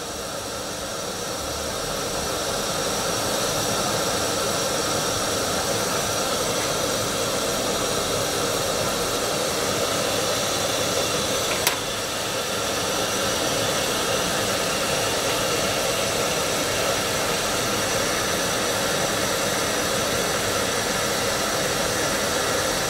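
Gas canister stove burner running with a steady hiss under a mess kit pan of water heating toward the boil, growing a little louder over the first few seconds. A single sharp click about halfway through.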